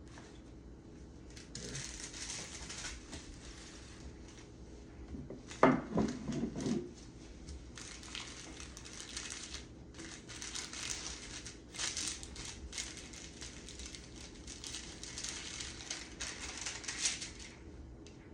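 Paper and plastic sterile packaging crinkling and rustling in repeated stretches as sterile gloves are unwrapped and handled. There is one louder bump about six seconds in.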